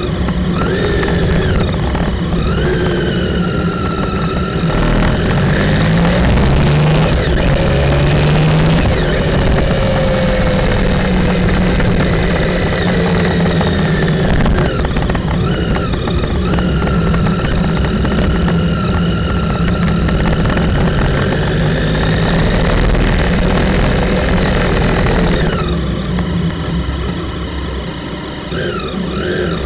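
Motorcycle engine running while riding through traffic, its pitch rising and falling with throttle and gear changes. It eases off and drops quieter near the end, then picks up again.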